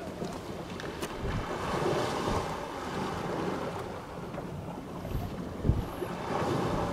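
Wind buffeting the microphone in gusts, with a few sudden low thumps, over the wash of small waves against a rocky shore.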